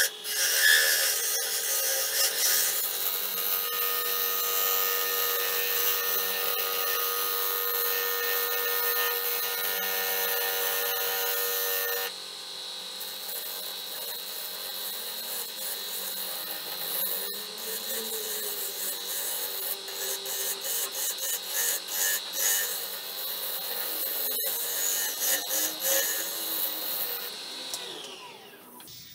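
Wood lathe spinning an algarrobo vase blank while a hollowing tool cuts inside its mouth: a continuous cutting and scraping hiss with many small rough ticks. It changes abruptly about twelve seconds in and fades out near the end.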